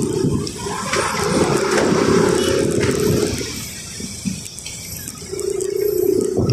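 Street traffic heard while riding, wind buffeting the microphone, with a vehicle engine droning steadily, once about a second in and again near the end.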